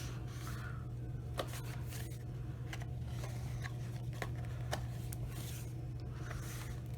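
Paper pages of a handmade collage book being turned and handled: soft rustles and a few light clicks over a steady low hum.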